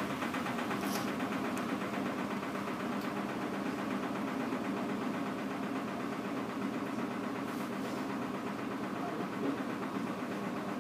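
Front-loading washing machine running, with water spraying into the drum, a steady mechanical churning with no breaks.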